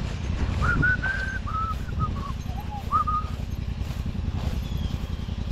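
An engine idling steadily with a low, even rumble, and a few short whistled notes at varying pitch over it during the first few seconds.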